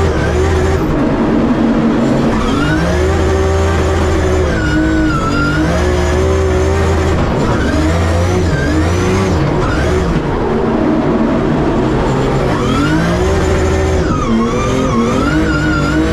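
Turbocharged 2JZ straight-six of a drift car heard from inside the cockpit, revving up and down again and again as the car drifts, over steady tyre and road noise. It is running with turned-down boost and a lowered rev limit on a shakedown run.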